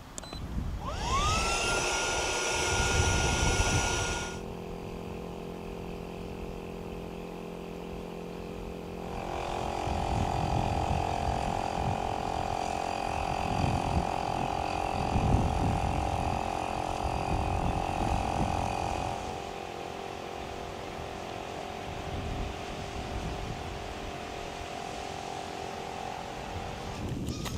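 Electric air pump inflating the beams of an air tent: its motor spins up with a rising whine about a second in, then runs steadily, changing pitch and loudness several times as it works.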